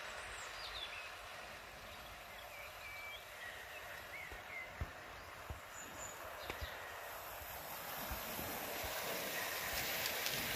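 Model train running on a garden railway track, its wheels rolling with scattered clicks over the rail joints and growing louder near the end as it passes close by. Small birds chirp during the first half.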